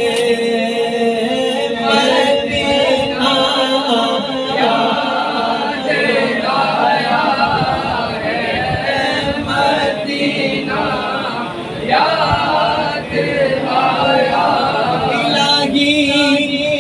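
A group of voices singing a naat, an Urdu devotional hymn, without instruments.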